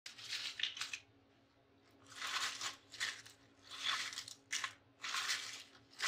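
Oil-free microwave-baked potato chips crackling and crunching as hands crush and break them on a plate, in about six short bursts with pauses between. The brittle crackle is the sign that the chips came out very crisp.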